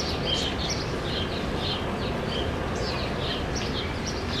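Birds chirping, short high calls repeating about three times a second, over a steady background hiss.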